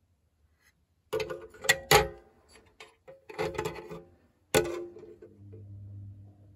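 Three bouts of sharp mechanical clicking and clattering with a brief metallic ring, the loudest about two seconds in. A low steady hum starts about five seconds in.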